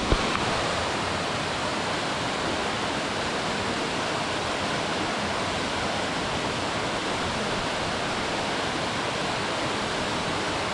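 Steady rush of water from a mountain stream and waterfall in a gorge. A single short knock sounds just after the start.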